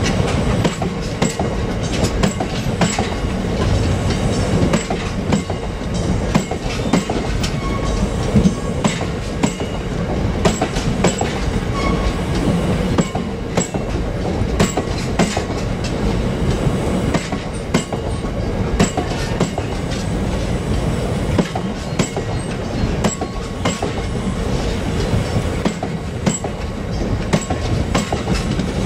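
Loaded or empty open box freight wagons rolling past, with a steady rumble and repeated clicks of the wheels over rail joints.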